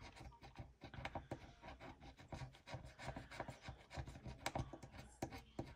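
A small metal scratcher scraping the coating off scratch-off stickers on a paper savings card: a quick, irregular run of faint short scraping strokes.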